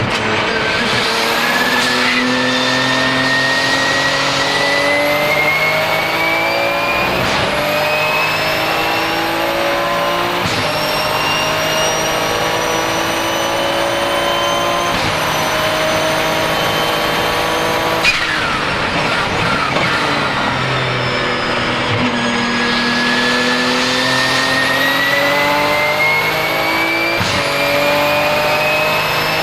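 Porsche 997 GT2 RSR's twin-turbo 3.9-litre flat-six accelerating hard through the gears. The engine note climbs and drops back at each of several upshifts, and a high turbo whistle rises along with it. There is a single sharp pop about two-thirds of the way through.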